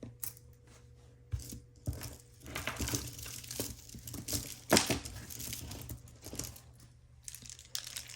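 Hands handling and sorting costume jewelry: irregular rustling with small clicks of beads, chains and clasps, and one sharper click a little under five seconds in.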